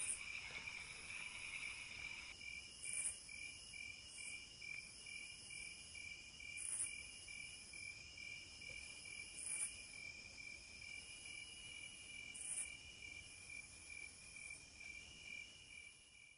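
Night insects chirring: a faint, steady rapid cricket trill, with a brief louder burst of higher-pitched insect calls about every three seconds. It fades out at the very end.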